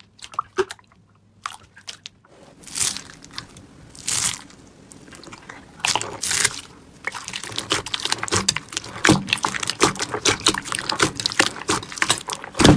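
Blue slime packed with small white foam beads being squeezed and pressed by hand, making dense crackling and crunching pops. The start is nearly quiet for about two seconds, and the crackling grows denser toward the end.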